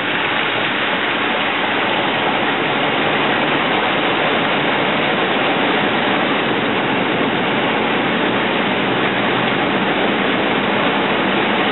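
Floodwater rushing and surging against the front of a Chevy Colorado pickup as it drives through water up over the bumper, a steady loud wash heard from inside the cab, with the engine's low hum underneath.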